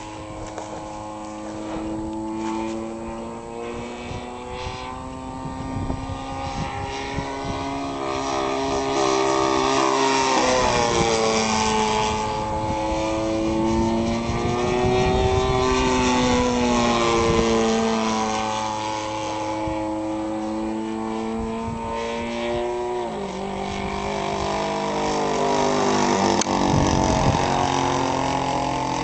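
Tow plane's propeller engine in flight, one steady droning note whose pitch slides up and down as the plane passes and turns, louder through the middle and again near the end.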